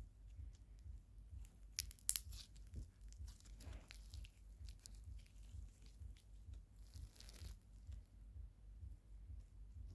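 Slime being squeezed and stretched by hand, giving crackling, popping and tearing sounds, with a sharper cluster of crackles about two seconds in.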